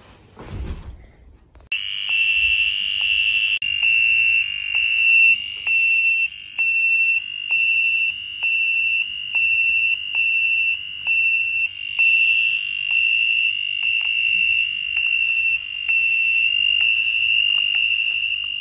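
A brief rustle and bump as the wearer slumps from the chair. Then, from about two seconds in, a loud electronic alarm sounds: a high beeping tone pulsing a little under twice a second. It is the fall-detection system's alert that a fall has been detected.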